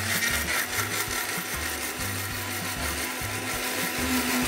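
Electric blender running steadily, grinding green chillies, spices, coriander and water into a wet green paste, its motor hum lifting a little near the end.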